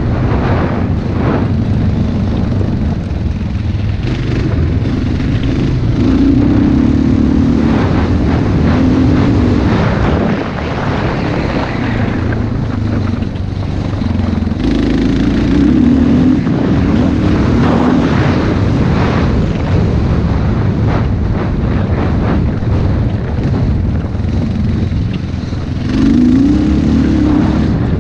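Dirt bike engine running hard on a motocross track, its revs climbing and dropping again and again as the rider works the throttle and shifts.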